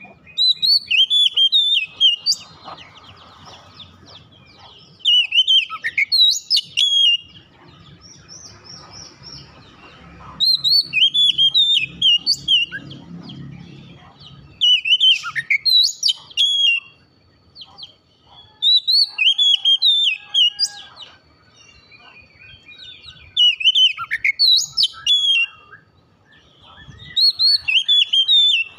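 Oriental magpie-robin (kacer) singing: loud phrases of clear whistles that slide up and down, seven phrases in all, one every four to five seconds.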